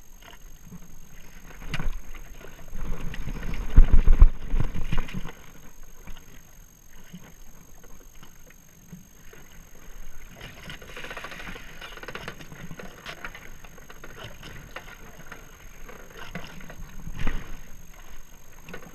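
Water lapping and slapping against a jet ski's hull, with irregular knocks and rustles from a grouper being unhooked with pliers on its side. The loudest part is a rumbling surge about three to five seconds in.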